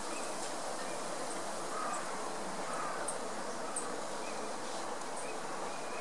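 Steady outdoor background hiss with a faint low hum, over which a few very brief, faint, high-pitched small-bird calls sound now and then.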